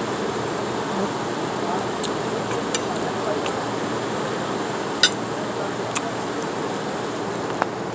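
A metal spoon clicking against a plate a few times while eating, the sharpest click about five seconds in, over a steady outdoor rush of background noise.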